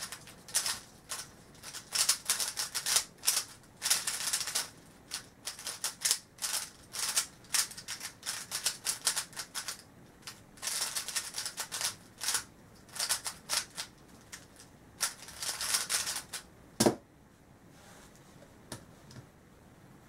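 Rapid clacking of a plastic Yuxin Little Magic 3x3 speedcube being turned fast in a speedsolve, in quick bursts with short pauses between. About 17 seconds in there is a single sharp knock as the solve ends and the cube goes down on the mat.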